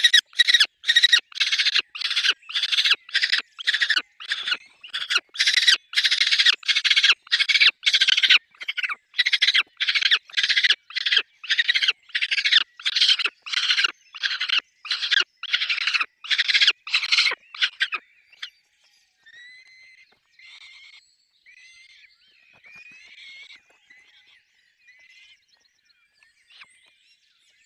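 Peregrine falcon giving a long series of loud, harsh calls, close to two a second, which stop abruptly about two-thirds of the way through. Fainter, thinner chirps follow.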